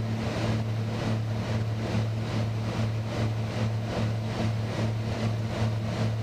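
Beechcraft Baron 58TC's twin turbocharged piston engines and propellers droning steadily at approach power, heard inside the cabin on final approach with the gear down. A rhythmic pulsing about two to three times a second runs through the drone.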